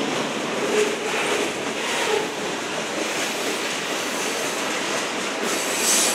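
Freight train cars rolling past: a steady rumble of steel wheels on rail with clatter at the rail joints, short faint wheel squeals, and a brief high-pitched screech near the end.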